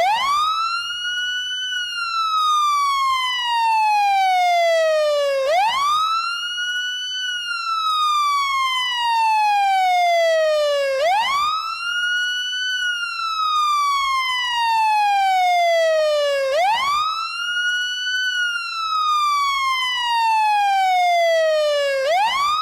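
Fire truck siren sounding a slow wail: each cycle sweeps quickly up in pitch, holds briefly at the top, then falls slowly, repeating about every five and a half seconds, four times over.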